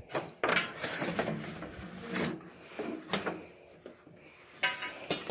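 Irregular rubbing and clattering as a cord is tugged and handled, with a louder clatter near the end.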